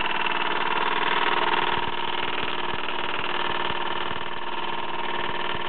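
Mamod ME3 model steam engine running steadily, turning a propeller shaft through a universal joint. It has a fast, even beat with a steady whine over it, running smoothly.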